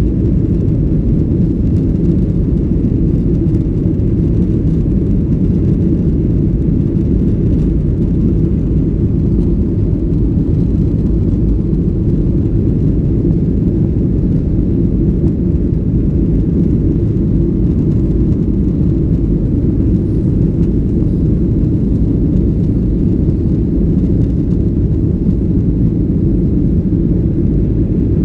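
Boeing 737-800 jet engines and airflow heard from inside the cabin as a loud, steady, muffled low rumble.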